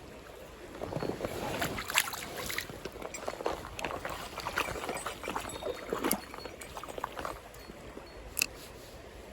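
Water splashing and sloshing in irregular bursts for about six seconds over the steady rush of a mountain stream, with a sharp click near the end.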